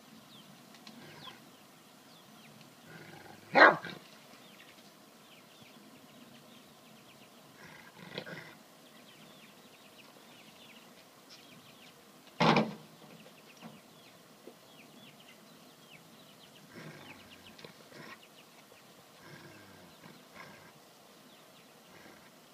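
A dog gives two short, loud barks or snarls about nine seconds apart, a warning at a goat that keeps butting at it. Fainter, shorter sounds come in between.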